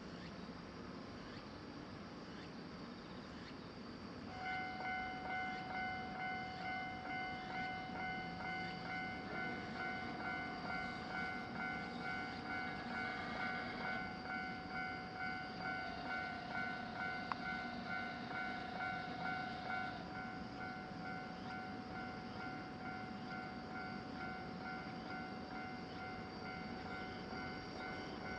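Japanese level-crossing warning alarm starts about four seconds in, an electronic ding repeating at an even pace of about one and a half strikes a second, over steady insect chirping. The pulsing eases after about twenty seconds while the alarm tone carries on.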